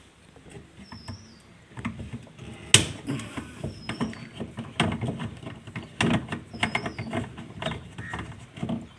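Irregular clicks, knocks and rattles of hands and tools working on refrigerator parts. Short high chirps of small birds come through now and then.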